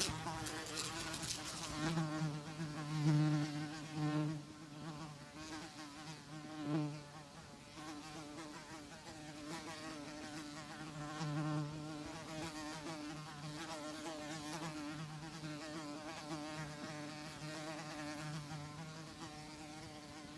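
Housefly buzzing in flight: a steady wing hum that swells louder several times in the first seven seconds, then carries on more evenly.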